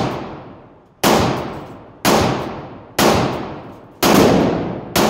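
Five shots from a 5.7×28mm pistol, fired about one a second. Each shot rings out in a long echo off the walls of an indoor shooting range.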